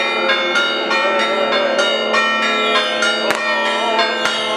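Church bells pealing with repeated strokes, their tones ringing on over one another: the Orthodox Easter Resurrection peal. A couple of sharp cracks sound about three and four seconds in.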